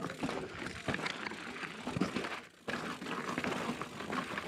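Mountain bike rolling fast over loose rock and gravel, its tyres crunching and the frame and parts rattling over the bumps, with a brief lull about two and a half seconds in.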